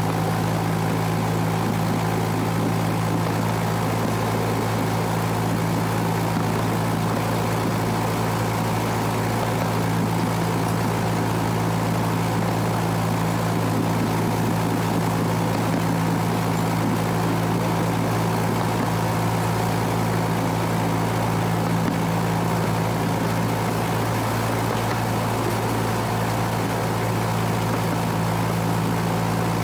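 Engine of the miniature railway locomotive Robert running steadily: a constant, even drone with no change in pitch.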